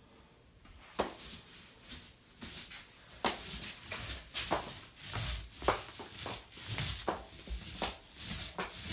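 Paint roller being rolled up and down a wall with wet paint: a hiss that swells and fades with each stroke, starting about a second in, with a few sharp clicks and knocks.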